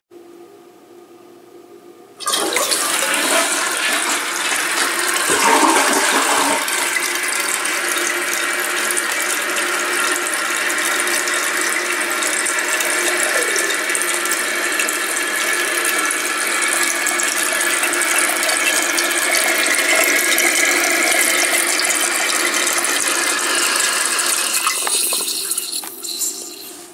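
Toilet flushing: a sudden rush of water about two seconds in, then the tank refilling through its float-cup fill valve with a steady, loud hiss that cuts off near the end as the valve shuts.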